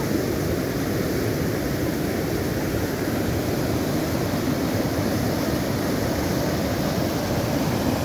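Muddy floodwater from an overflowing reservoir rushing and churning over rocks, a steady, unbroken rush.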